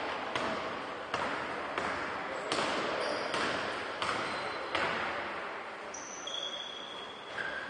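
Basketball being dribbled on a court, a steady bounce about every three-quarters of a second, with high sneaker squeaks in the second half.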